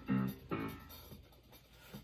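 Guitar music: two short plucked notes near the start, then a near-quiet pause.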